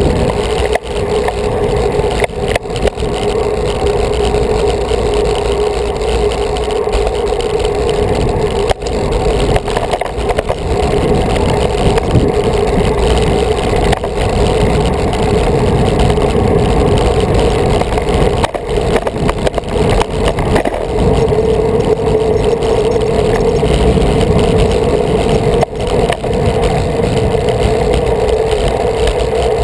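Wind rushing over the microphone of a camera riding on a road bike: a steady rumble with a constant hum, dipping briefly a few times.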